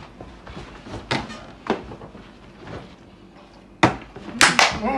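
A plastic bottle being flipped and knocking down onto a tabletop: several sharp knocks, the loudest about four seconds in.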